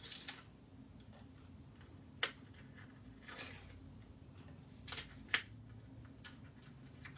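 Backing liners being picked up and peeled off strips of double-sided adhesive tape on a piece of cardstock: a few small sharp clicks, the loudest about two and five seconds in, between brief paper rustles.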